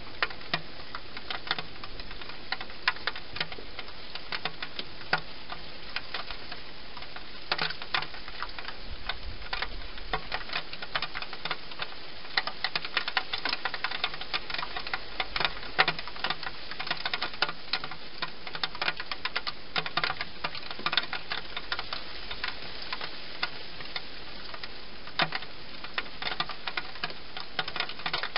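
A wild hedgehog eating inside a plastic feeding box, its chewing heard as irregular sharp clicks, thickest in the middle stretch, over a steady hiss.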